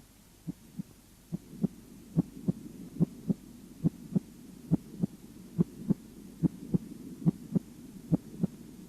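Human heart sounds heard through a stethoscope: regular pairs of short, dull beats, the first and second heart sounds, about seventy pairs a minute. They grow louder after about a second, over a faint low hum.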